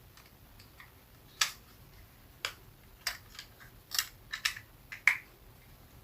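Sharp, short clicks and taps from hard plastic parts being handled, about nine of them spaced irregularly over a few seconds.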